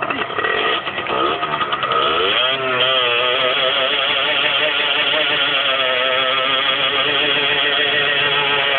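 Small sport motorcycle engine revving up about two and a half seconds in, then held at high revs with a wavering pitch while the rear tyre spins in a standing burnout.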